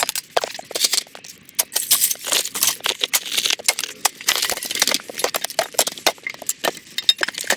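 Light metal clattering and rattling: many quick, irregular small knocks and jingles.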